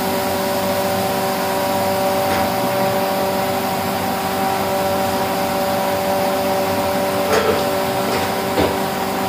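Steady whirring hiss of a spray-painting booth: the extractor fan running with a steady multi-tone hum, under the hiss of compressed air through a spray gun misting chrome solution. A few faint knocks near the end.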